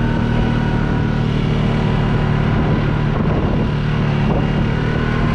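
Motor vehicle engine running at a steady speed, with a constant low hum and a steady higher whine.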